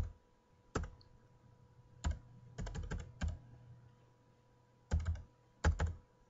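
Computer keyboard typing: single keystrokes and short quick clusters of keys, with pauses of a second or more between them.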